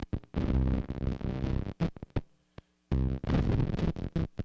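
A recorded song sample played through an octave-up fuzz, a fuzz biased low so it gates, and an overdrive pedal: heavily distorted music that chops in and out. Two loud bursts of about a second each, with short clipped stabs and dead silences between them as the gate shuts.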